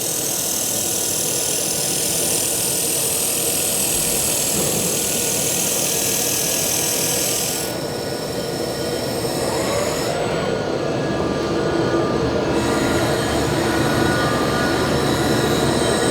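IPG LightWELD laser welder on a Fanuc CRX cobot running a wire-fed weld along a stainless steel seam: a steady, loud hiss. The hiss drops away about eight seconds in, and lower steady machine noise carries on.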